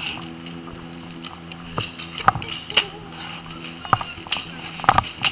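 Paintball markers firing: a handful of sharp pops at uneven intervals, most of them in the second half, over a steady low hum.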